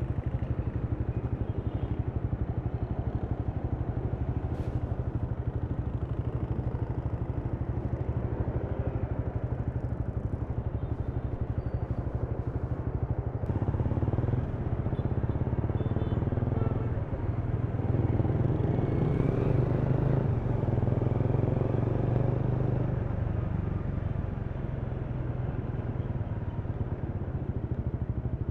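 Honda Rebel 300's single-cylinder engine running under way. It gets louder about halfway through for several seconds, then settles back.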